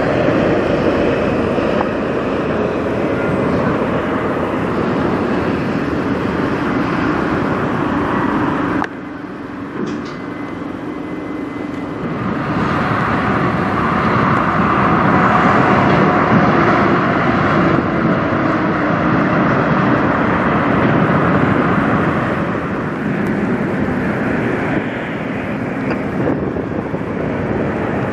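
Diesel semi-trucks driving past, a steady mix of engine and tyre noise. It drops abruptly about nine seconds in, then swells again and is loudest a few seconds later as another truck goes by.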